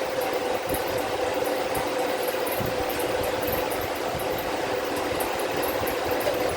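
A machine running steadily, an even rushing noise with a constant mid-pitched hum.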